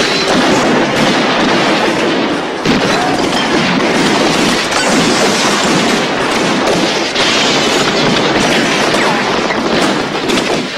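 Sustained heavy gunfire: many rifles firing at once in a continuous volley, shots overlapping with no pause.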